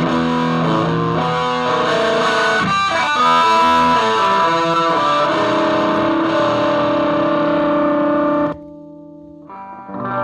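Hudson HLP-450 Les Paul-style electric guitar played through distortion and effects, with chords and held notes. The playing stops abruptly about eight and a half seconds in, leaving a faint ringing tone, and starts again about a second later.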